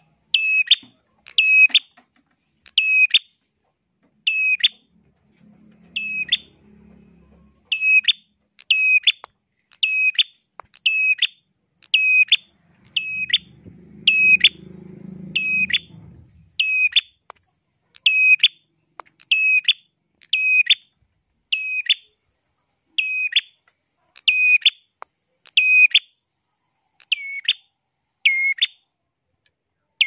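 A caged prenjak songbird calling over and over, a shrill, sharp note roughly every second and a half. A faint low rumble sits under the calls about a fifth of the way in and again near the middle.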